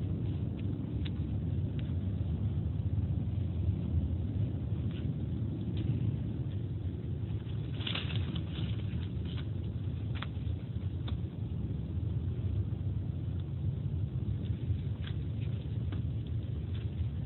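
Footsteps on a dirt path covered in dry leaves, with scattered crackles of leaves and twigs underfoot, over a steady low rumble on the microphone.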